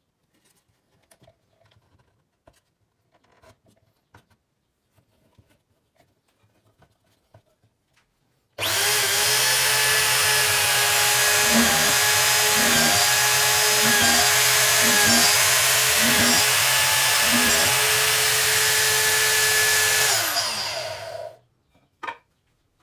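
Faint handling clicks, then an electric drill motor driving the homemade tool starts abruptly and runs at speed for about twelve seconds. Its pitch dips briefly about half a dozen times before it is switched off and winds down with a falling whine. A single click follows.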